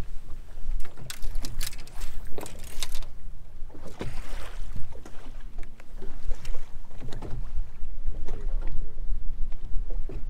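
Choppy lake water slapping against the hull of a bass boat, with wind buffeting the microphone as a constant low rumble. A few sharp clicks and knocks come about one to three seconds in.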